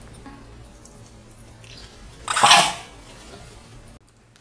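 Small dog, a white Pomeranian, gives one short, sharp cough about two seconds in, a noisy burst lasting about half a second, over a faint steady hum.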